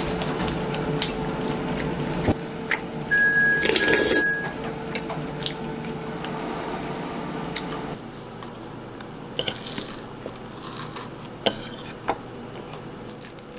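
Metal spoon and cutlery clinking and scraping against ceramic bowls and plates while eating, in scattered light clicks. A short high electronic beep sounds twice in quick succession about three seconds in.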